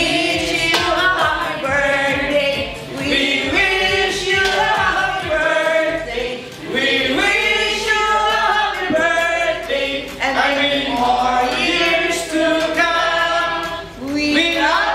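A song sung by several voices together in chorus, with held, sung notes throughout.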